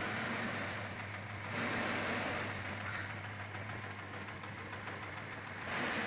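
Green peppercorns rustling and rattling as they are worked by hand with a scraper in a woven tray and poured into a sack. The sound is a steady hiss that swells about one and a half seconds in and again near the end, over a low steady hum.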